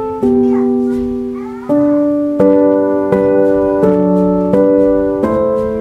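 Background music: a piano playing a slow run of sustained chords, each struck and left to fade, struck more regularly about every three-quarters of a second from a couple of seconds in.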